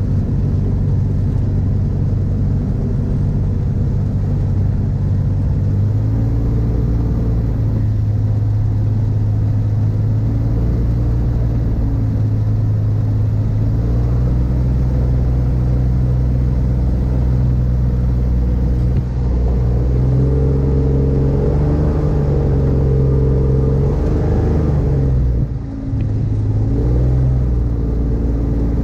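Rotax 582 two-stroke engine of an X-Air microlight running while the aircraft taxis on grass, heard from the open cockpit. Its pitch steps up with the throttle a few times, drops briefly near the end and then picks up again.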